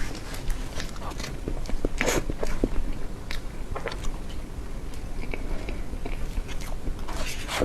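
Close-miked ASMR eating sounds of soft cream desserts: wet chewing and lip smacks with irregular sharp clicks of the mouth.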